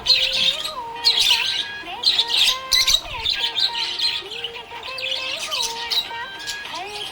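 Budgerigars chirping and warbling continuously, a dense run of quick high chirps with a few squawks.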